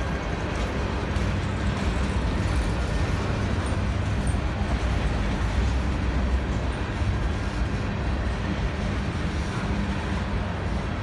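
Covered hopper cars of a grain train rolling past: a steady rumble of steel wheels on rail.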